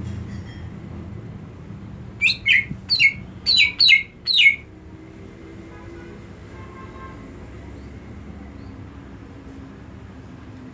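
A cucak ijo (greater green leafbird) gives a quick run of about six sharp chirps, each falling in pitch, about two seconds in and lasting a couple of seconds.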